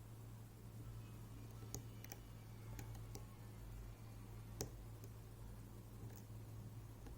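Small, irregular clicks of lock picks working inside a MIWA U9 lock, about half a dozen, the loudest about four and a half seconds in, over a steady low hum.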